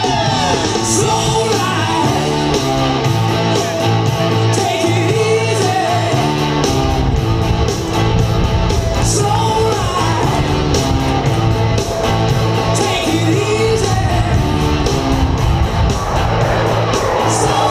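Loud rock song with singing over guitar and a steady bass line.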